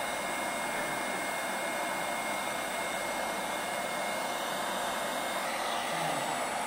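LC3000C hot air welding machine's blower running steadily with the heater switched off, blowing air through to cool the heating element down; a faint high whine sits over the steady rush of air.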